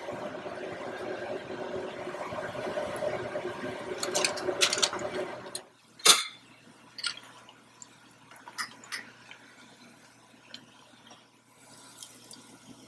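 Hot oil sizzling around a breaded coxinha deep-frying in a small pan: a dense crackling sizzle with a steady hum underneath that cuts off abruptly about five and a half seconds in. A sharp click follows, then only scattered faint pops and light clinks as the coxinha is lifted out on a slotted spoon.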